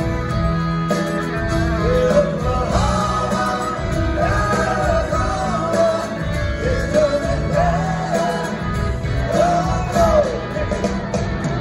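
Live rock band with a country feel playing a song: drums, bass, acoustic and electric guitars and organ, with a male lead vocal line, heard from far back in a theatre audience.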